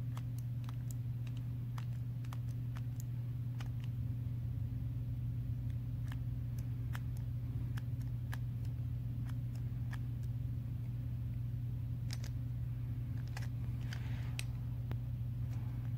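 Small scattered plastic clicks and taps from a Zone Lúinor L5 Beyblade Burst top handled in the fingers, with a short scraping sound near the end as the top is gripped at its layer and driver. A steady low hum runs underneath and is the loudest thing heard.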